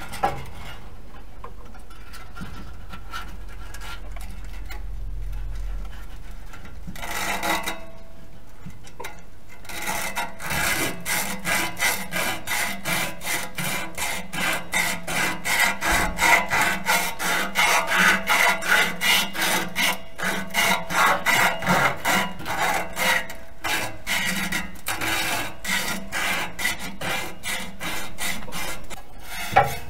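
The rusty steel exhaust pipe of a Toyota Prius being scrubbed back and forth by hand with an abrasive: rasping strokes, light at first, then after about ten seconds louder and even at about two strokes a second. This is rust being cleaned off around a burnt-through hole to prepare it for patching.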